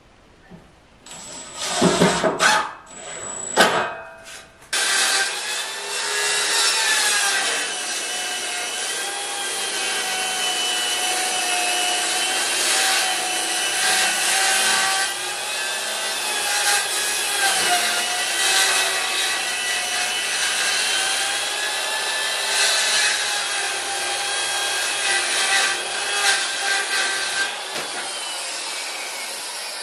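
A cordless drill runs in a few short bursts driving screws, then a handheld corded power tool runs steadily for about 25 seconds, working a clamped strip of wood, its motor whine wavering slightly in pitch under load.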